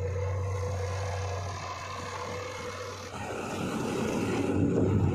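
JCB 3DX backhoe loader's diesel engine running steadily, then about three seconds in a louder, rougher engine sound that builds toward the end.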